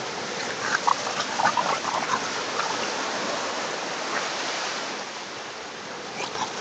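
Two dogs play-fighting, giving a quick run of short, high yelps and growls about one to two seconds in, over a steady wash of surf.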